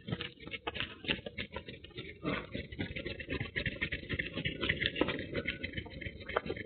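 Rapid, irregular scratching and knocking from a small camera strapped to a Scottish terrier as the dog moves about: its body and harness rub and knock against the microphone.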